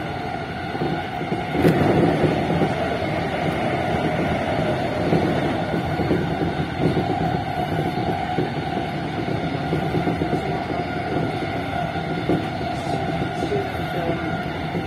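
JR East E233-series electric train running at speed, heard from inside the driver's cab: a steady rumble of wheels on rail with a steady whine, and a brief louder rush about two seconds in.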